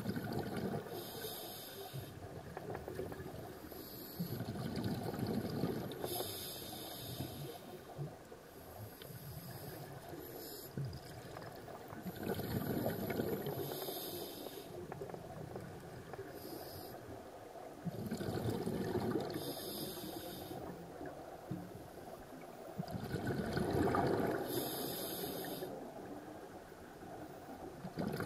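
Scuba diver breathing through a regulator underwater. A hiss comes with each inhalation, and a gurgling rush of exhaust bubbles with each exhalation, repeating every five or six seconds.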